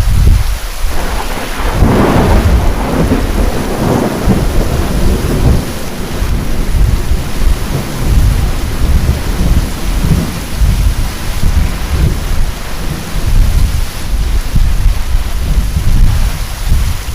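Thunder rolling through heavy rain: a loud low rumble that breaks in suddenly just before, with a sharper crackling peak about two seconds in, then rumbles on and on while the rain hisses steadily underneath.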